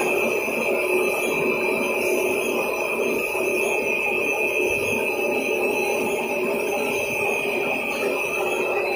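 CPE cast film line running: steady machinery noise with a constant high whine, as the blue isolation film runs over the rollers and winder.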